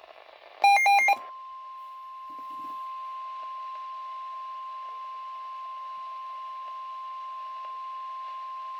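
Emergency Alert System broadcast on a weather radio: a brief, loud burst of rapidly switching digital data tones (the end of the SAME header), then the steady single-pitch 1050 Hz NOAA Weather Radio alert tone starting about a second in and holding unchanged, over radio hiss.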